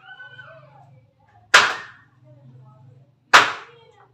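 Two sharp knocks a little under two seconds apart, each ringing out briefly: a block of ice being banged against the hard ledge to break it up for chilling freshly churned butter.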